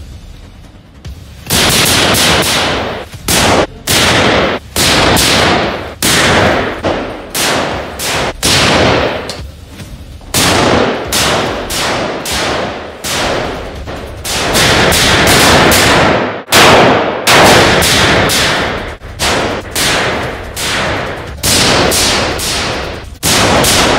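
Gunfire: rapid volleys of pistol shots, each shot with a ringing tail. The shooting breaks out about a second and a half in and goes on with only brief pauses.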